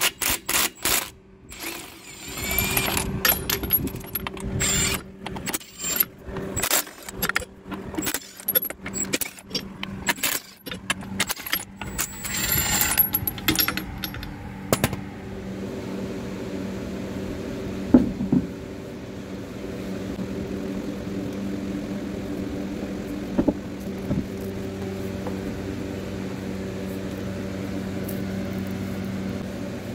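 Milwaukee cordless impact driver spinning already-loosened lug nuts off a semi truck's rear wheel, in a string of short whining bursts over the first half. A steady low hum with a couple of single knocks follows.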